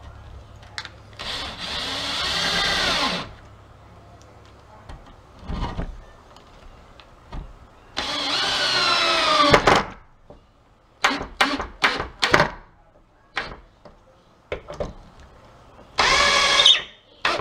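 Cordless drill driving screws into pre-drilled pilot holes: three long runs in which the motor's pitch drops as each screw bites and seats, with a quick series of short trigger bursts in between.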